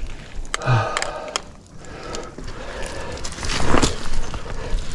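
Trekking pole tips clicking on rock and boots scuffing and scraping on gritty, slick trail dirt, with three sharp clicks in the first second and a half.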